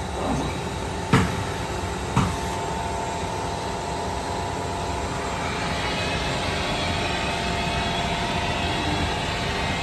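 Steady machinery hum with two faint steady tones running through it. It is broken by two sharp knocks about a second apart shortly after the start.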